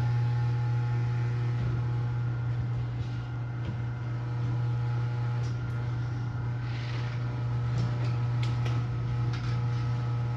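Electric garage door opener motor running steadily with a strong low hum while the door travels, with a few light clicks in the second half.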